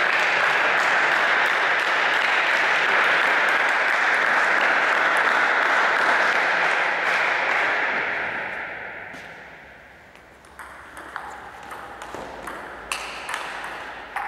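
Spectators applauding after a table tennis point, dying away after about eight seconds. Then a rally begins: the celluloid ball clicks sharply off the rackets and table about twice a second.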